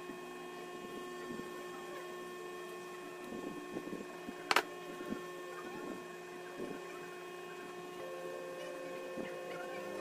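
Steady electrical hum with several fixed tones, under faint scratching and ticking as a small metal charging port is handled between the fingers. There is one sharp click about four and a half seconds in.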